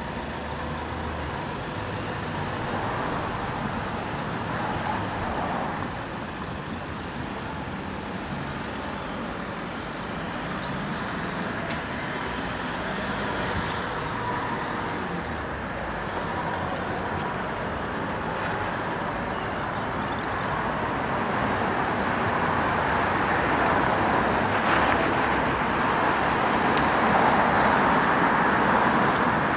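Road traffic passing, a steady wash of vehicle noise that grows louder over the last third.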